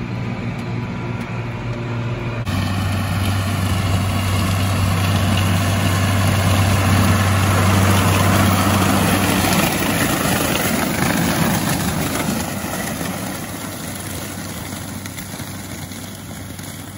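Tractor engine humming steadily in the cab. After a cut, a tractor pulls a stalk chopper through corn stalks: its engine and cutter noise grow louder toward the middle and fade as it moves away.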